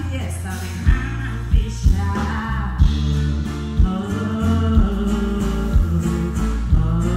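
Live band music: a woman singing over acoustic guitars with a deep bass line and drum hits about once a second.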